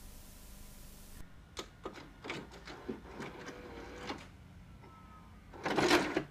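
Cassette tape deck mechanism: a steady hiss cuts off about a second in, followed by a run of clicks and clunks with a brief whine, then a louder clattering rattle near the end.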